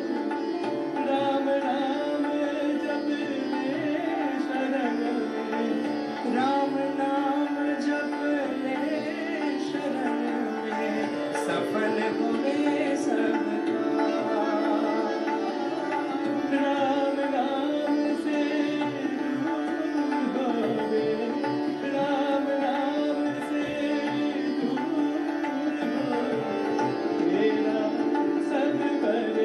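Hindustani devotional bhajan in Raag Mishra Kirwani: two male voices singing over harmonium, tabla and a steady tanpura drone.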